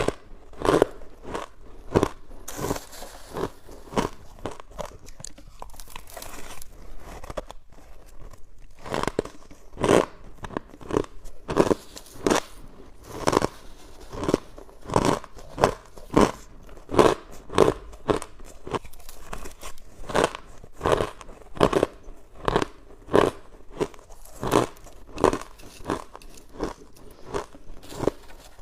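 Close-miked crunching and chewing of hard freezer frost ice, bite after bite, about one or two sharp crunches a second.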